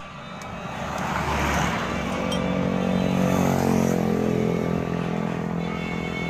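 A motor vehicle engine running, growing louder over the first three seconds, then falling slightly in pitch and settling to a steady run.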